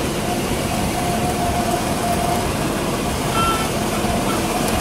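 Light single-engine propeller plane's engine and propeller running steadily, heard from inside the cockpit, with a faint steady tone over the noise.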